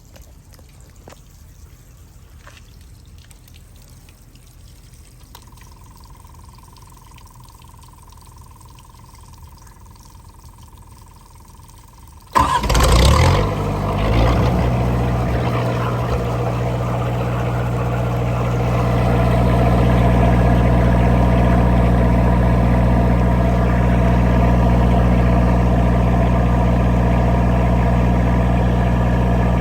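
Cummins Onan 13.5 kW marine diesel generator starting: after a quiet stretch with faint clicks and a thin steady tone, the diesel cranks and catches suddenly about twelve seconds in, then runs steadily, growing a little louder a few seconds later and holding there.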